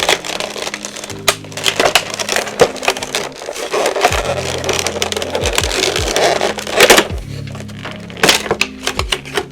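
Plastic shrink-wrap being torn and pulled off a cardboard collection box, with irregular crinkling and crackling. Background music with held low notes plays underneath.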